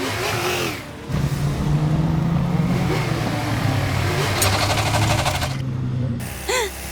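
Cartoon vehicle engines running hard during a chase: a steady engine drone that steps up and down in pitch like gear changes. It drops briefly about a second in, and a short wavering pitched sound comes near the end.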